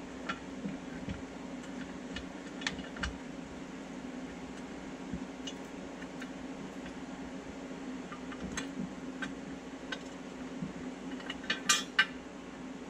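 Light metal clinks and taps as a front differential skid plate is held up against the differential and bolts are started into it, with a quick, louder cluster of clinks near the end. A steady low hum runs underneath.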